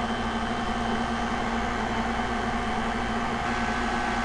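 KitchenAid Classic stand mixer running at moderate speed with a steady motor hum, beating a runny mix of heavy cream, chocolate powder and condensed milk in its steel bowl.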